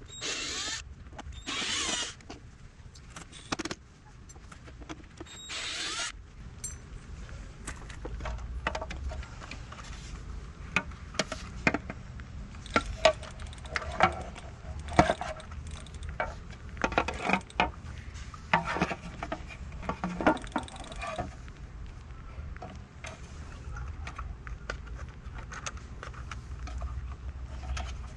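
Cordless drill-driver whirring in about four short bursts as it backs screws out of a plastic battery compartment cover, then irregular plastic clicks and knocks as the cover is lifted off and handled.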